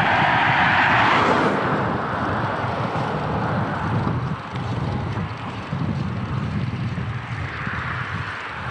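Wind buffeting the microphone of a camera on a moving bicycle, a rough, fluctuating rush. A car passes in the opposite direction, loudest in the first second and fading by about a second and a half in.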